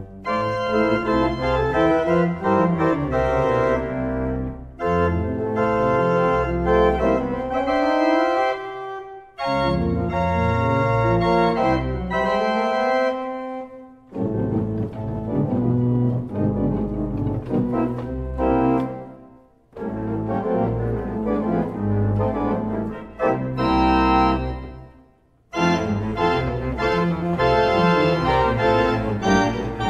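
Pipe organ played with full chords over a deep pedal bass, in phrases of about five seconds broken by short pauses, some phrases climbing in rising runs.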